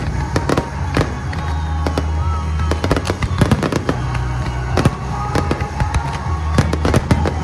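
Aerial fireworks bursting in a dense barrage, with many sharp bangs and crackles following one another several times a second over a steady low rumble.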